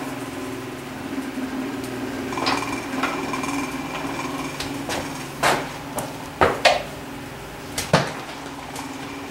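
Long steel pry bars knocking and clanking against a Husqvarna 394XP chainsaw crankcase as the case halves are levered apart: a handful of sharp metal knocks, the loudest in the second half. A steady machine hum runs underneath.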